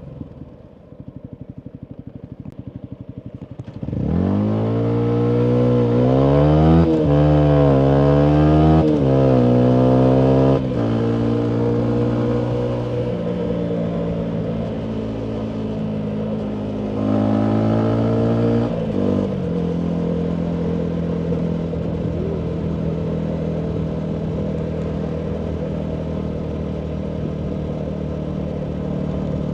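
2019 Yamaha MT125's single-cylinder 125 cc four-stroke engine through a full Akrapovic exhaust: ticking over low, then about four seconds in accelerating hard through several gears, the pitch climbing and dropping back at each shift. It then settles to steady cruising revs, with one more brief rise in revs past the middle.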